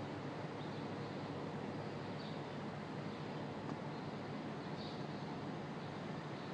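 Steady city street ambience, an even hum of distant traffic, with a few faint, short high chirps from small birds.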